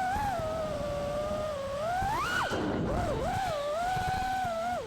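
FPV racing quadcopter's brushless motors whining, the pitch rising and falling with the throttle, with a sharp climb and drop about two seconds in. A low rough noise runs underneath.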